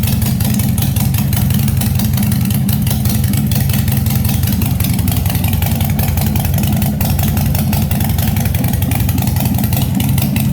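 2022 Harley-Davidson Forty-Eight's air-cooled V-twin idling steadily and loudly through a new custom aftermarket exhaust, with a fast, even pulse.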